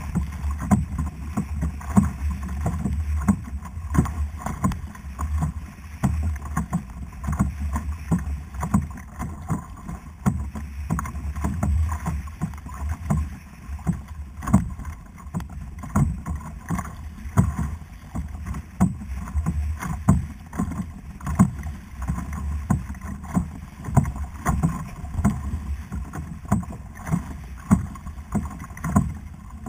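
Kayak on the sea: a steady stream of short knocks and splashes from water slapping the hull and the paddle, over a low steady rumble.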